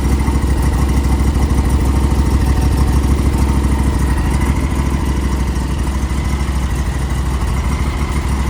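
John Deere lawnmower engine running steadily, freshly cold-started in freezing weather.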